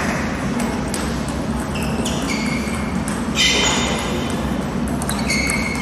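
Table tennis play in a sports hall: short, high ringing pings sound about two seconds in, louder at about three and a half seconds, and again near the end, over a steady hall background with faint voices.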